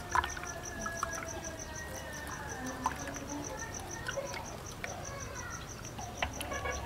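An insect chirping steadily in short, even high-pitched pulses, about five a second, with a few faint clicks around it.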